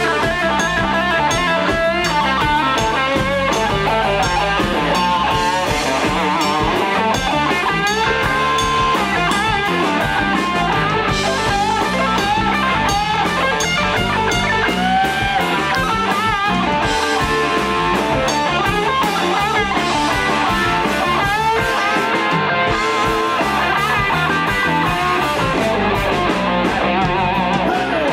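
Blues band playing live: electric guitars, bass guitar and drum kit, with lead lines whose notes bend up and down in pitch.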